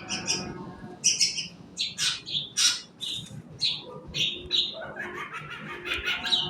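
Long-tailed shrike (cendet) singing a run of short, harsh chirps and squawks, two to three a second, softer for a moment about five seconds in.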